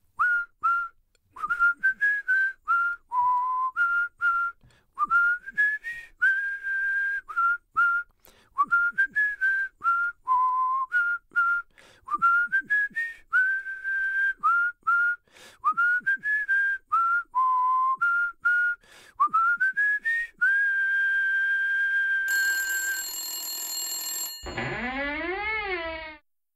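A person whistling a tune in short notes, many of them scooping up into pitch, ending on a long held note. Near the end a high ringing tone sounds, then a creak that rises and falls in pitch as a door is opened.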